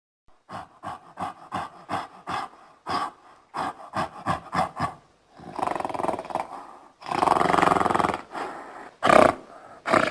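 An animal calling: a quick, uneven run of about a dozen short, rough grunts, then two longer, drawn-out rough calls from about halfway, and a few more loud short calls near the end.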